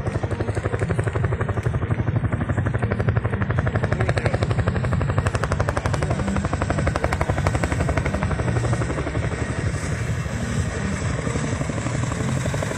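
Helicopter flying overhead, its rotor blades beating out a rapid, even chopping throughout. The chopping swells a little around the middle and eases slightly toward the end.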